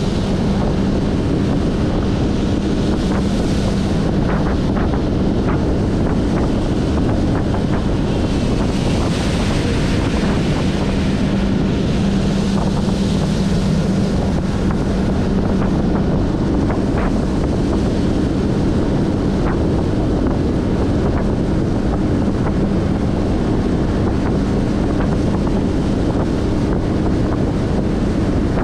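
Outboard-powered speedboat running at speed: a steady engine hum under heavy wind buffeting on the microphone and the rush of water along the hull.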